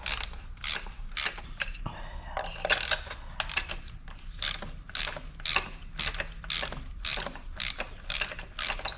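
3/8-drive ratchet with a long extension and 5/8 spark plug socket clicking in repeated strokes, about two or three clicks a second, as the spark plugs are loosened.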